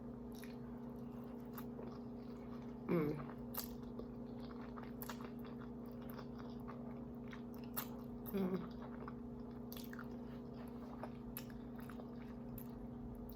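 Close-miked chewing and biting of creamy Alfredo pasta, with soft wet mouth sounds and scattered light clicks over a steady low hum. Two short hummed vocal sounds come about three seconds in and again near the middle.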